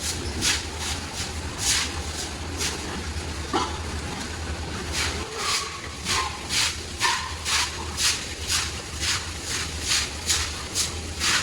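Rhythmic swishing strokes, about two a second, typical of a broom sweeping a pig barn floor, over a steady low hum. Pigs give a few short calls about halfway through.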